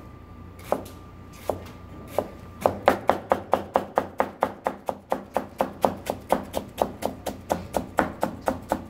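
Chef's knife shredding cabbage on a plastic cutting board. A few separate chops come first, then from about two and a half seconds in a quick, even chopping rhythm of about five strokes a second.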